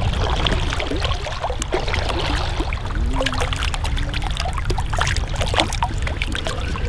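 A small hooked brook trout splashing and thrashing at the water's surface as it is reeled in, a run of short irregular splashes over the steady rush of the creek.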